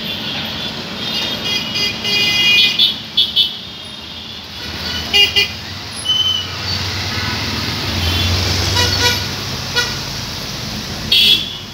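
Road traffic with vehicle horns honking in short, high toots several times over a steady engine rumble, which swells about eight seconds in.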